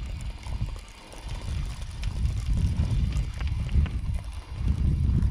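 Wind buffeting the microphone, an uneven low rumble that grows louder about two seconds in. Faint light ticking of a fishing reel can be heard as a bottom rig freed from a snag is wound in.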